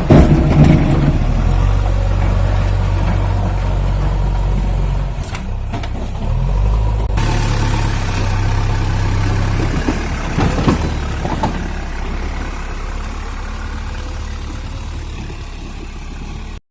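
JCB backhoe loader's diesel engine running steadily, its note shifting about five and seven seconds in, with sharp knocks near the start and again about ten and a half seconds in. The engine sound fades gradually toward the end.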